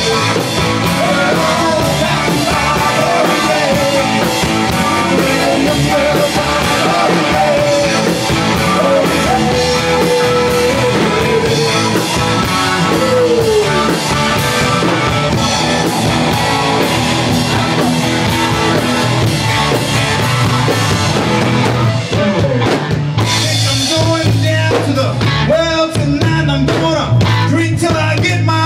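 Live rock band playing loudly, with electric guitar, bass and drum kit and a lead melody that bends in pitch.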